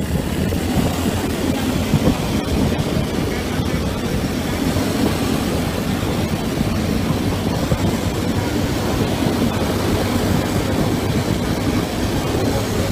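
Steady rumble and road noise of moving traffic, heard while riding close behind a moving pickup truck.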